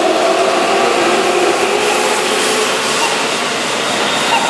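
Keihan 9000-series electric train running past the platform as it pulls out, wheels rolling on the rails under the whine of its VVVF inverter motor drive.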